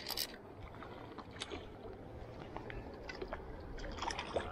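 Faint splashing of a hooked trout being drawn through shallow river water at the bank, scattered small splashes and clicks over the low rush of the river.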